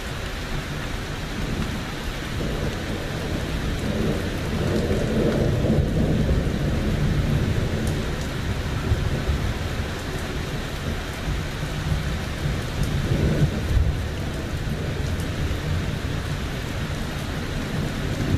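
Thunder rumbling over steady rain during a thunderstorm. The low rumble swells for several seconds early on and again, more briefly, past the middle.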